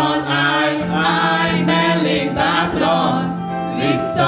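Music: a song played over a backing track, with a group singing along into microphones.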